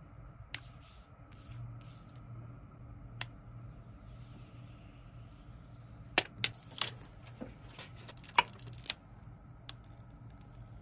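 Handling sounds of a phone unboxing: a few sharp clicks, then a burst of sharp clicks and crackles about six seconds in as the plastic protective film is peeled off the screen, over a low steady hum.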